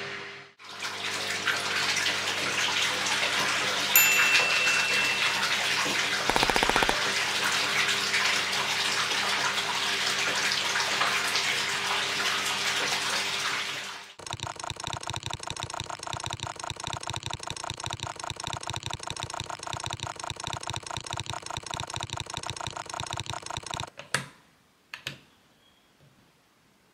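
Water from a pump hose pouring and splashing into a glass aquarium, over a steady pump hum. About halfway through, it gives way to a fast, even rattling for roughly ten seconds. Near the end come a few sharp clicks of LEGO bricks being pressed onto a brick wall.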